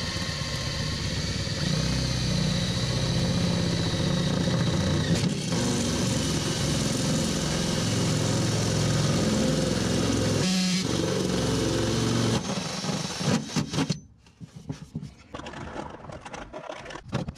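Cordless drill running under load as a hole saw cuts through the aluminum hull of a jon boat, a steady motor sound broken briefly a couple of times. It stops near the end, leaving quieter clicks and scraping.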